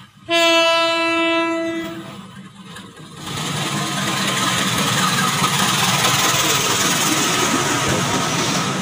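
Horn of a CC201 diesel-electric locomotive sounding one blast, deep and ship-like, of under two seconds. From about three seconds in, the train passes close by with a loud, steady rush of locomotive and coaches on the rails.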